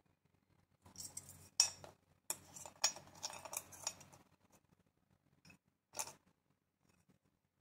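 Small metal parts of an I.F. transformer coil assembly clinking and scraping on a wooden workbench as it is handled: a run of light clicks and scrapes in the first half, and a single click about six seconds in.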